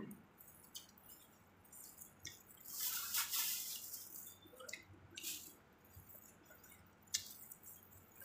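Close-up eating sounds of spicy sauced seafood being pulled apart and eaten with plastic-gloved hands: wet squelching, smacking and small clicks of shell, with a louder rustling stretch of about a second around three seconds in and a sharp click near the end.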